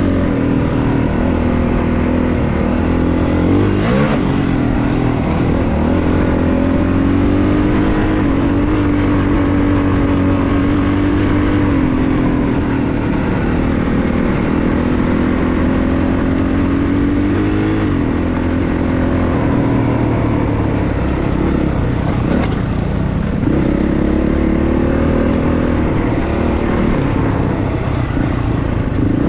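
Honda CRF450RX dirt bike's single-cylinder four-stroke engine running under way, heard from on the bike, its pitch rising and falling as the throttle is worked over the trail.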